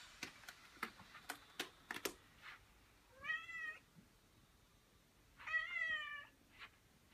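Siamese red point kitten meowing twice, once about three seconds in and again, louder, near six seconds, each call lasting under a second. A few short clicks come before the first meow.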